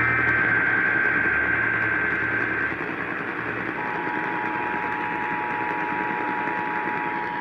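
Emergency Alert System test received over radio, with hiss throughout: a burst of the EAS digital header data ends a little under a third of the way in. After about a second of hiss, the two-tone attention signal starts a little past halfway and holds steady.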